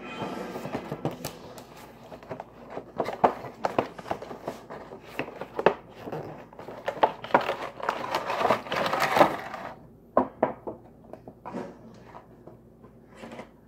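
Action figure packaging being opened by hand: the cardboard window box and its clear plastic tray crinkle, click and scrape in an irregular run, busiest for the first ten seconds, then sparser.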